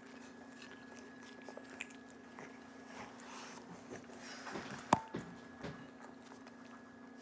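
Faint chewing and small mouth sounds of a person eating a fried bean-sprout spring roll, over a steady low hum, with one sharp click about five seconds in.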